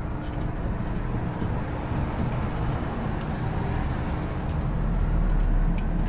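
Steady low rumble of a vehicle engine, growing a little louder near the end.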